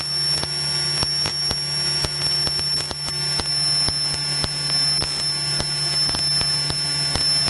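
Steady drone of a single-engine light plane in flight, as carried on the headset intercom feed, with a low hum, a thin high whine and frequent crackles of static.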